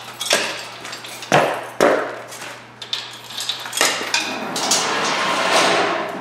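A series of irregular sharp knocks and metallic clanks, the two loudest close together about a second and a half in, over a faint steady hum.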